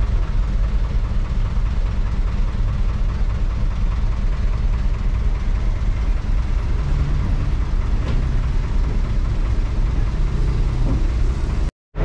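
Bus engine (Hyundai diesel) running at low speed, heard from inside the cabin, with a steady low drone and body rattle throughout. The sound drops out completely for a moment near the end.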